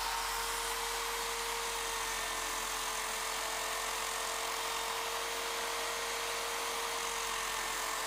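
An Interskol DU-750ER electric drill, serving as the motor of a homemade drum sander, running steadily at full speed with an even whine as it spins the sanding drum.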